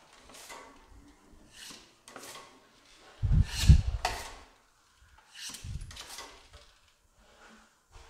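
Steel drywall trowel scraped across a hawk and over wet joint compound on the wall in a series of short strokes, about six in all. The loudest stroke, about halfway through, carries a low thump.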